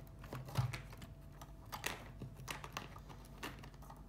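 Plastic Lego bricks clicking and knocking as a hand handles the models, a run of irregular sharp clicks over a faint steady hum.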